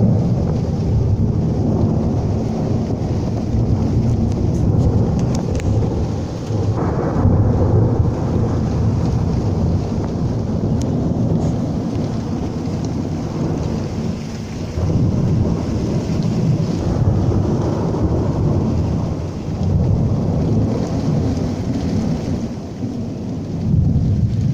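Thunder rumbling continuously through a thunderstorm, swelling and easing in waves, with steady rain beneath it.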